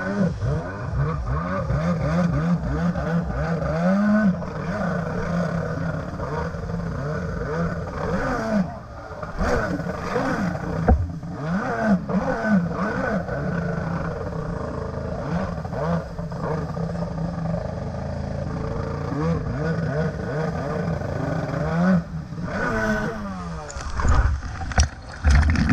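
Stand-up jet ski engine revving up and down over and over, with water spraying and slapping around the hull. A few heavy splashes near the end as the ski cuts hard through the spray.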